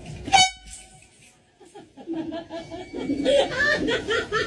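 A short, loud horn blast, its tone trailing off over about a second, followed after a pause by laughter.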